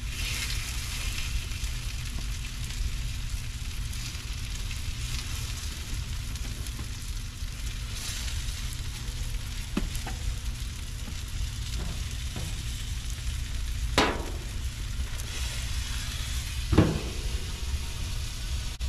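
Chicken sizzling on a gas grill, with light clicks of tongs on the grate. Two sharp metal clanks come in the second half; the louder, last one is the grill's lid being shut.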